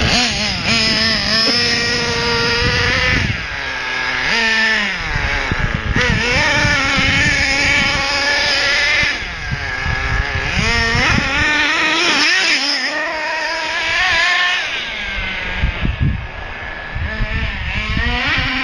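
XTM XLB RC buggy's small nitro engine being driven hard, revving up and down over and over, its pitch climbing and falling every few seconds as the throttle is worked.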